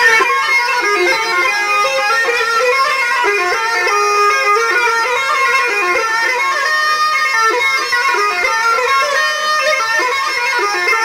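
Folk music led by a reedy wind pipe playing a continuous melody, bagpipe-like in tone.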